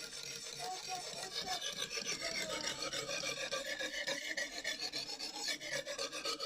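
Lansky 120-grit sharpening stone being stroked back and forth along a kitchen knife's edge at a 25-degree angle, a steady rasping scrape in quick repeated strokes.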